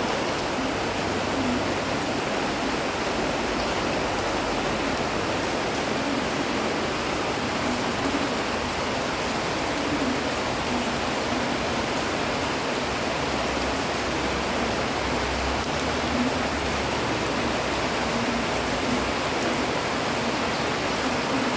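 Steady, dense rain falling on the leaves of a small tree, an even hiss that does not let up.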